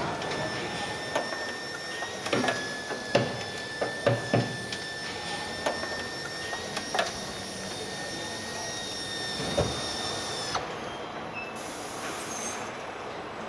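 Car-factory production-line machinery: a steady high whine over background noise, with a series of sharp knocks and clanks, most of them bunched in the first half.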